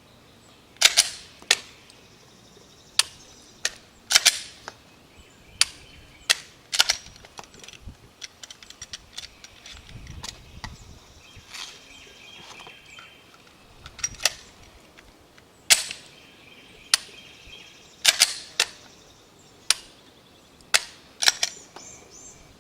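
Shots from an AK-pattern rifle and a Glock pistol fired during a rifle-to-pistol transition drill: about twenty single shots at an uneven pace. A pause of several seconds near the middle holds only small clicks.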